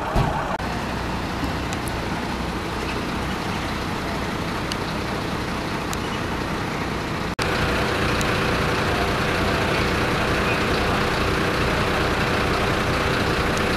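Large emergency vehicle's engine idling steadily. A little past halfway the sound cuts and comes back louder, with a steady hum running through it.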